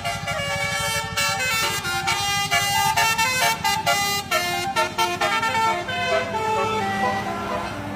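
A bus's Basuri-type telolet horn, a multi-note horn, playing a quick tune of short stepped notes over the low, steady pulse of the bus's engine.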